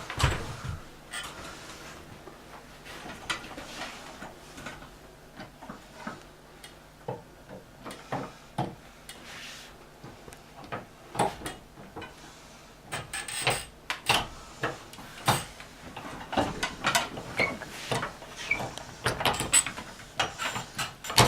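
Irregular clicks, knocks and scrapes of a letterbox entry tool with a push-button attachment being worked through a door onto the inside handle.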